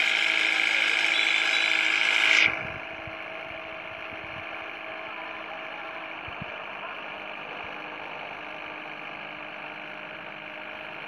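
Excavator's diesel engine running steadily, heard from on the machine. About two and a half seconds in, the sound drops suddenly to a quieter, duller engine hum.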